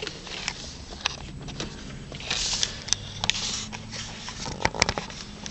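Scattered light clicks and rustling of handling inside a car, over a faint steady low hum.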